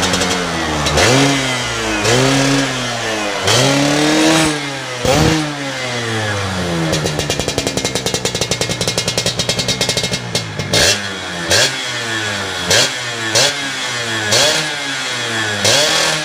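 Yamaha F1ZR's 110 cc single-cylinder two-stroke engine revved through a gutted (bobokan) stock muffler. It rises and falls in a few long revs, runs steadier with a fast even pulse for a few seconds, then gives quick sharp throttle blips about once a second.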